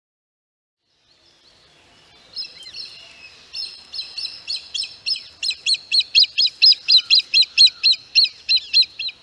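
A bird calling: a long series of short, high repeated notes, about three a second, growing steadily louder and then cutting off suddenly.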